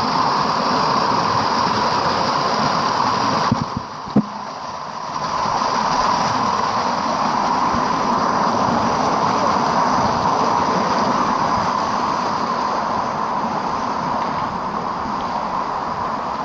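Waterfall, water rushing steadily. About four seconds in, the sound briefly drops away and there is one sharp knock.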